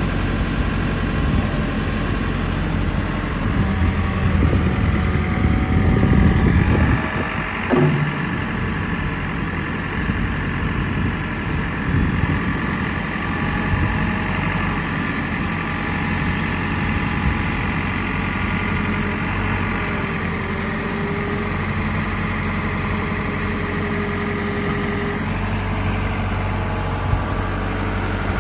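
JCB 3CX backhoe loader's diesel engine running at idle, louder for a few seconds about four to seven seconds in, with a single knock near eight seconds, then steady.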